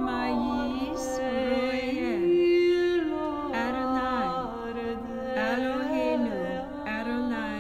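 Music: a slow sung chant, voices holding long notes and sliding down between them about every two seconds.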